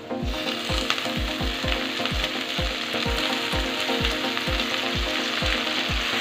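Handfuls of washed, wet amaranth leaves dropped into hot mustard oil with fried onions in a kadhai, breaking at once into a loud, steady sizzle as the water meets the oil.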